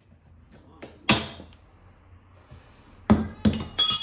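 Steel tyre lever knocking once about a second in, then dropped onto a tiled floor near the end: three quick clattering bounces followed by a long, bright metallic ring.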